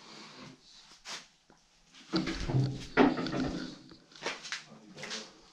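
Metal storage cabinet doors being handled, with clanks and a scraping rattle. The loudest stretch comes from about two to three and a half seconds in, with a sharp knock near the middle of it.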